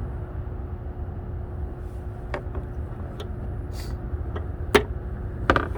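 A handful of short, sharp clicks and knocks from hand work on a car's fittings, the loudest one near the end, over a steady low rumble.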